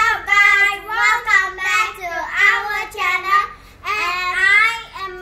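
A young girl singing in short phrases, with brief breaks about two seconds and four seconds in.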